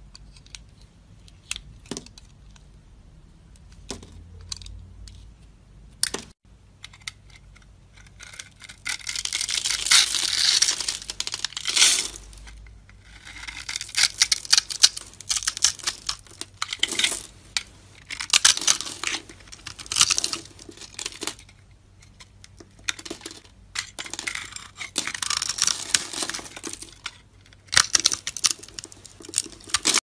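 A craft knife cutting into a bar of soap, with a few sharp clicks. About eight seconds in it turns to crunching and crackling in several long spells as small scored soap cubes are broken off a block and crumble away.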